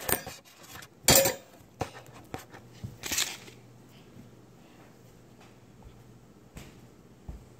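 Handling noises at a table as food and its wrapping are moved about by hand on a paper plate: a few knocks, a loud bump about a second in and a short crinkle of plastic about three seconds in, then only a couple of faint taps.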